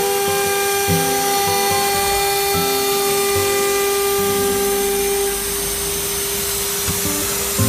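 CNC router's 4.5 kW water-cooled spindle running with a steady high whine. Under it, lower motor tones jump to a new pitch every half second or so as the axes make short moves. The spindle's upper overtones fade about five seconds in.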